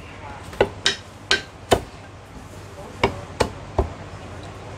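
Chinese cleaver chopping through a whole poached chicken onto a round wooden chopping block: seven sharp chops, a run of four in the first two seconds, a pause, then three more.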